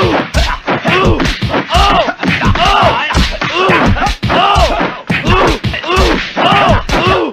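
Rapid repeated thumps, each paired with a short vocal cry whose pitch rises and then falls, about two a second.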